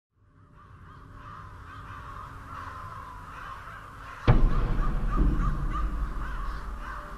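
Crows cawing, fading in from silence. About four seconds in, a sudden deep boom rumbles on for a few seconds, louder than the caws.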